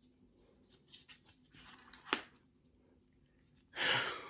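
Soft rustling and handling of the earphones' packaging and accessories, with a sharp click about two seconds in and a louder rush of noise near the end that fades away.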